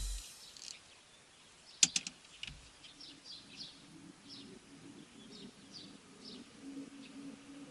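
Birds chirping in short, repeated high calls, with a quick cluster of sharp clicks about two seconds in and a faint low hum underneath.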